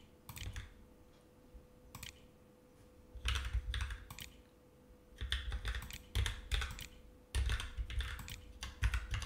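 Typing on a computer keyboard: short runs of key clicks, a word at a time, separated by brief pauses, with dull thuds of the keys bottoming out under them. A faint steady hum lies beneath.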